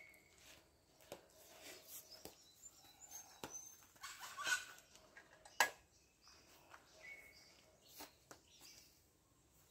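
Faint outdoor ambience: short bird chirps, footsteps and scattered light clicks, with a rustle about halfway through and a single sharp click just after it.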